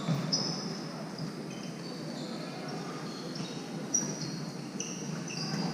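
Sneakers squeaking on a sports-hall floor during a floorball game: many short, high squeaks over a steady din of play in the hall.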